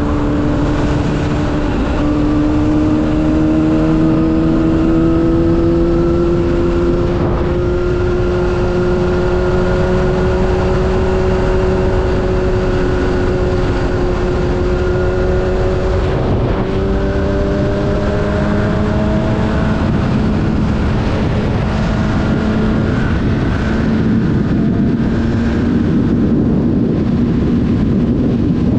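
Sport motorcycle engine running steadily at freeway cruising speed, its pitch drifting slowly up and back down, under a heavy rush of wind noise.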